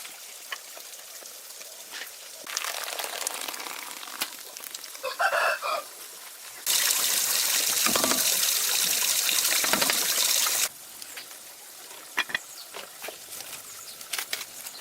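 A chicken calls briefly about five seconds in, over a light hiss. Then a loud, steady rush like gushing water starts suddenly, runs for about four seconds and cuts off abruptly, followed by scattered light clicks and taps.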